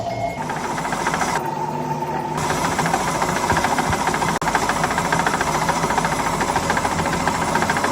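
Workshop machinery running steadily, with a fast rattling chatter over a steady high tone.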